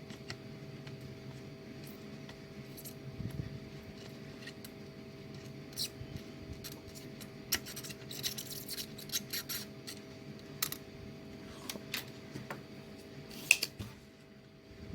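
Small metal clicks and brief scrapes of hand tools working on a modem's circuit board as a crystal is heated and desoldered, over a steady hum. The clicks are busiest about halfway through, and one sharper click comes near the end.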